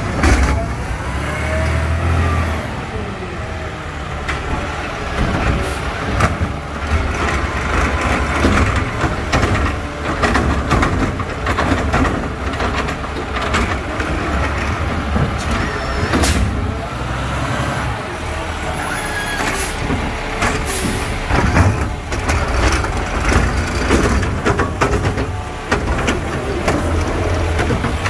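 McNeilus automated side-loader garbage truck's diesel engine running as it pulls along the curb between carts, with short air-brake hisses and knocks from the hydraulic arm and plastic carts.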